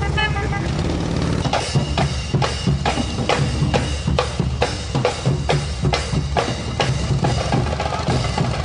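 Marching band drum line playing a cadence: snare and bass drums strike a steady beat about three times a second, starting about a second and a half in. Motorcycle engines rumble underneath at first.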